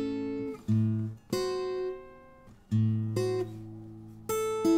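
Steel-string acoustic guitar playing a blues phrase in A: a plucked low A bass note with treble notes and partial chords, each struck note ringing and fading. The notes come in short groups, with a pause about two seconds in where the sound dies away.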